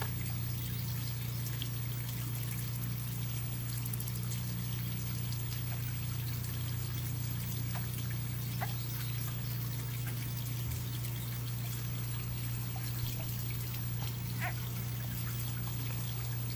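Steady trickling, water-like noise over a constant low hum, with a few faint ticks.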